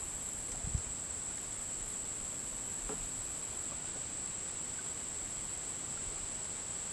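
Insects giving a steady, unbroken high-pitched drone, with one faint soft thump about a second in.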